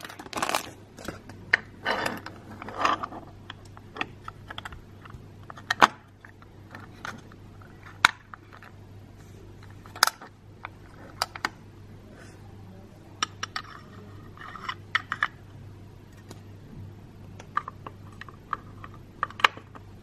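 Clear plastic packaging bag crinkling for the first few seconds, then small hard plastic miniature toy pieces clicking and tapping as they are handled and set down on a table, in sharp separate clicks.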